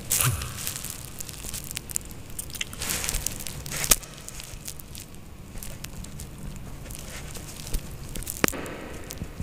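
A man's breathy exhale of cigarette smoke at the start, then faint scattered clicks and rustles of handling, with a sharper click about four seconds in and another near the end.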